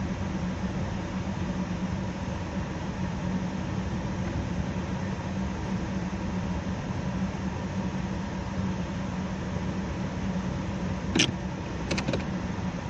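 Steady inside-the-car driving noise, a low engine and road hum. Near the end come one sharp click and then two lighter clicks.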